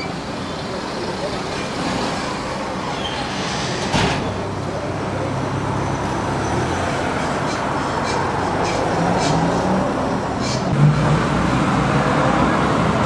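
Steady traffic noise from a road, with faint voices in the background and a sharp click about four seconds in and another near the end.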